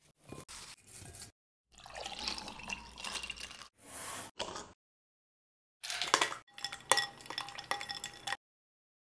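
A metal spoon stirring ice cubes and watermelon pieces in a glass bowl, clinking against the glass with short ringing tones, in the second half. Before it come shorter, wet kitchen sounds of the watermelon and liquid being prepared.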